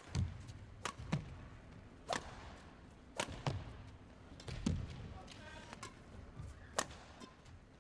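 Badminton rally: sharp cracks of rackets striking the shuttlecock about once a second, back and forth, with low thuds of the players' footwork on the court.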